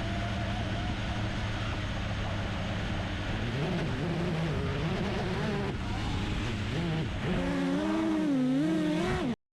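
FPV quadcopter's brushless motors and props whirring, steady at first, then rising and falling in pitch with the throttle; the sound cuts off suddenly near the end.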